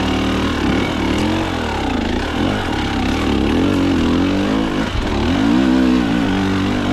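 KTM two-stroke hard enduro dirt bike engine under load, the revs rising and falling over and over as the throttle is worked while riding.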